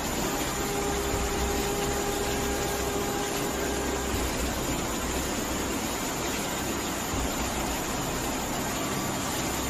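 Steady rushing noise of floodwater running down a street, with cars driving through the water.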